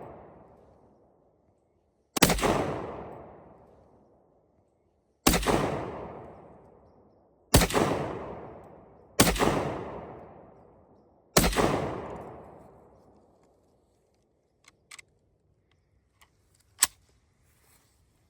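Five rifle shots, a second and a half to three seconds apart, each echoing away for a couple of seconds, followed by a few light metallic clicks near the end.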